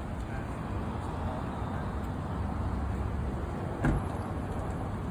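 Steady low rumble of street traffic, with one short knock about four seconds in.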